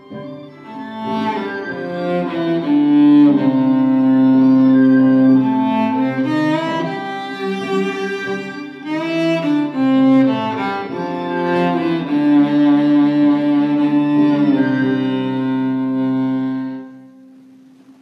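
Solo violin playing a slow melody of held notes and short runs, fading out near the end.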